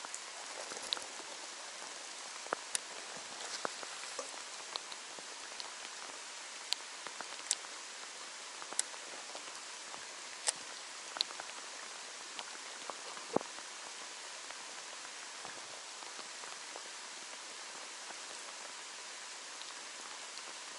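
Steady rain hiss with irregular sharp ticks of single drops striking nearby, most of them in the first two-thirds.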